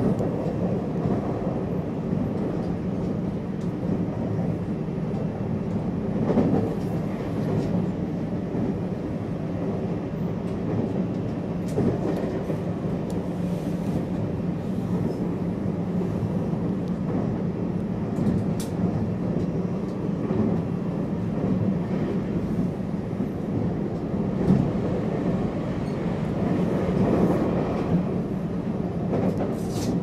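Running noise of a JR West 225 series electric multiple unit heard from inside the carriage at speed: a steady low rumble of wheels on rail, with a few brief clicks.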